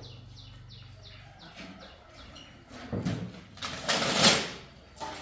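A rapid series of short, falling, high chirps, about four a second, like small birds chirping, over a low steady hum. About three seconds in, a louder rushing noise rises and falls.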